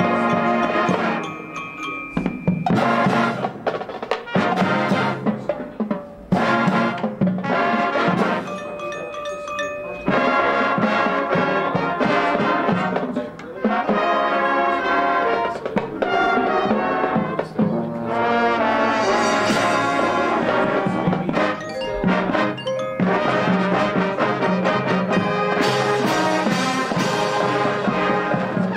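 Marching band playing its field show: full brass with front-ensemble percussion. There are quieter stretches in the first ten seconds, then sustained loud brass chords.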